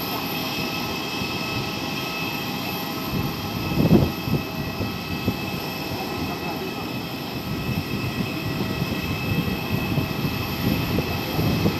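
Airliner engines running steadily with a constant high whine over a low rumble. A brief louder rush comes about four seconds in.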